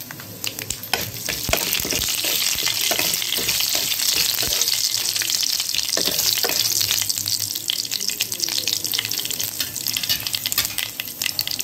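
Panch phoron seeds and dried red chillies sizzling and crackling in hot mustard oil in a wok, with many sharp pops of the seeds spluttering: the tempering stage, the oil hot enough for the spices to burst. A spatula stirs and scrapes them through the oil, and the sizzle grows louder about a second in.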